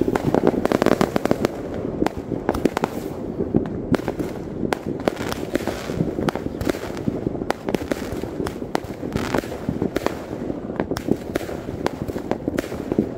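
Many aerial fireworks going off at once: a dense, continuous run of bangs and crackles, loudest in the first second or two.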